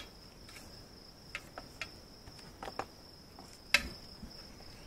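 Light scattered knocks and clicks as a stainless Staintune exhaust pipe and muffler are worked into place under a motorcycle's luggage rack, with one sharper knock about three-quarters of the way through. A steady thin high tone runs underneath.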